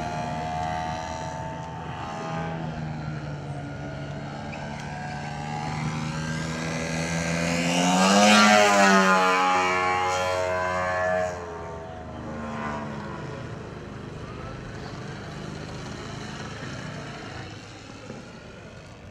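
The 3W-170 170cc two-stroke gasoline engine of a Krill Model Su-29 radio-controlled aerobatic plane running in flight, with its propeller. It grows louder as the plane comes close, its pitch rising and then falling as it passes about eight seconds in. A little after eleven seconds the sound drops off suddenly and stays quieter.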